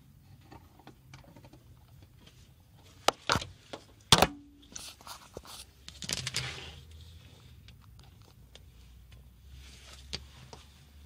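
Handling noise as the camera is moved around close to the saw: scattered clicks and knocks, with a pair about three seconds in and the loudest, a sharp knock with a brief ring, just after four seconds. A rustling scrape follows around six seconds, and a single click comes near the end.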